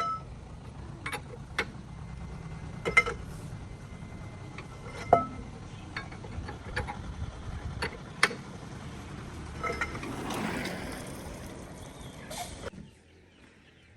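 Metal hand tools and parts clinking and knocking during tractor repair work, in a dozen or so sharp, irregular strikes, some ringing briefly. A low steady rumble lies underneath and falls away near the end.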